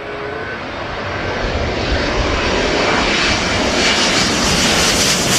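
Twin-engine wide-body jet airliner passing low overhead on approach with gear down, its engine noise growing steadily louder as it nears.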